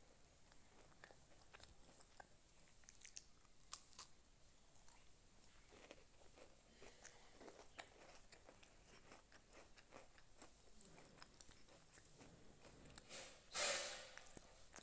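Faint clicks and taps from handling a stainless steel mixer-grinder jar holding cut raw mango pieces and fitting its plastic lid, with one louder, brief rustling clatter near the end.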